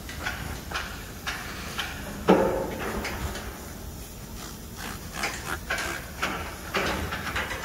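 Hand work on a cargo pump's stainless pipe fittings: an irregular run of short clicks and scrapes of tools on metal, with one louder metallic knock about two seconds in.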